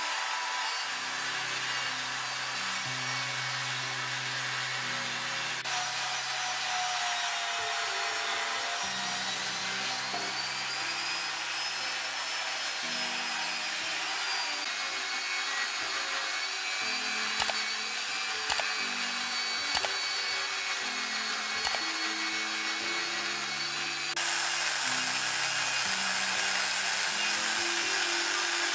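Handheld rotary tool with a sanding drum grinding against a metal vase, a steady high whine that drifts in pitch, with a few clicks partway through and getting louder near the end. Background music with low held notes plays underneath.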